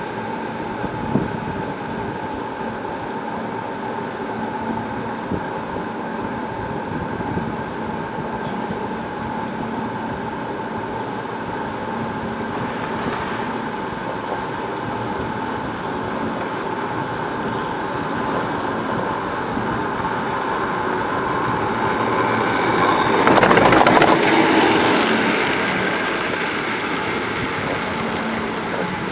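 Steady mechanical hum of a Transporta Chrudim (Von Roll licence) chairlift's haul rope running over the line sheaves, carrying a few held tones, heard from the moving chair. It swells louder for a couple of seconds near the end as the chair nears a tower's sheave train.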